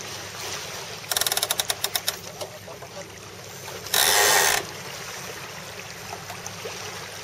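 Melges 24 racing sailboat under way, with a steady hiss of wind and water. About a second in, a rapid run of ratcheting clicks from the deck hardware lasts about a second. Near the middle, a loud rush of noise lasts about half a second.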